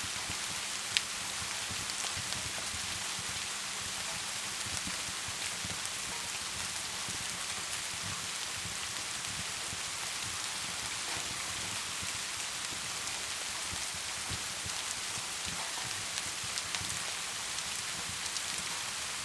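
Wood fire crackling in a fireplace: a steady hiss with scattered small pops, and one sharp pop about a second in.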